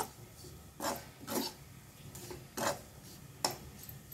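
Steel spatula scraping across a non-stick kadai as it stirs crisp fried bitter gourd rings and dry spice powder. There are about five separate scraping strokes, roughly one a second.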